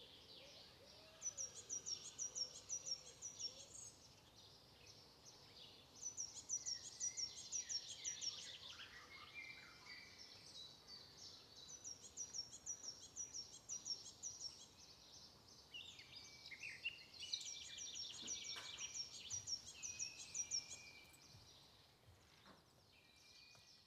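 Wild birds singing. One bird repeats a high, fast run of notes lasting about two seconds, roughly every five seconds, and other birds call lower underneath.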